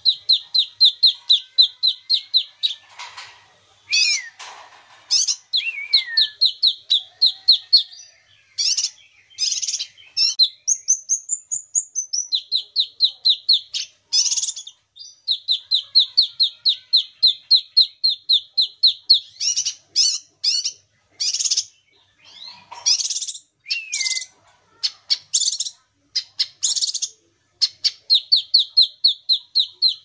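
Caged kinoi songbird singing: long, rapid trills of repeated notes, broken by louder, higher short calls and a slurred whistle about a third of the way in.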